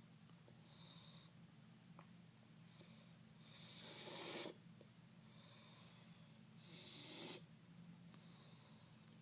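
Man snoring in his sleep: a snore about every three seconds, each swelling in loudness and then cutting off sharply. The two loudest come about four and seven seconds in, with fainter breaths between.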